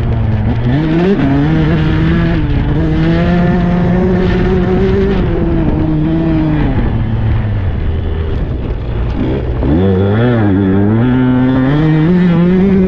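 A 125cc two-stroke Husqvarna dirt bike engine running under the rider. It holds an even pitch, drops lower around the middle, then rises and falls quickly with throttle changes before climbing again near the end.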